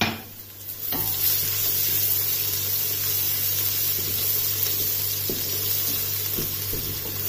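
Sliced onions, ginger-garlic paste and green chilies frying in oil in a stainless steel pressure cooker: a steady sizzle that comes up about a second in. A wooden spatula stirs through it, knocking lightly against the pot now and then.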